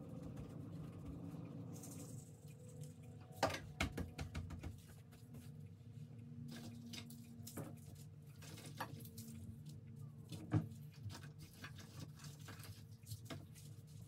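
Gloved hands assembling a sushi roll on a cutting board: scattered soft taps and clicks, with a cluster of louder ones a few seconds in and a single sharp one about two-thirds through, over a faint steady hum.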